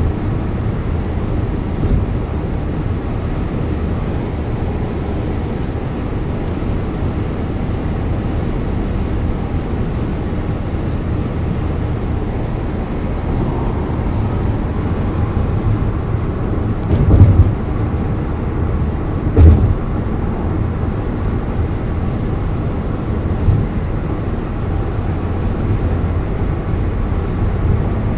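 Steady road and engine noise inside a car's cabin while driving on a highway, with two heavy low thumps a couple of seconds apart past the middle.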